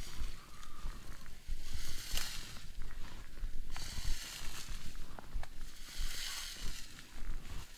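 Someone walking through tall meadow grass: a rustling swish about every two seconds over a low rumble.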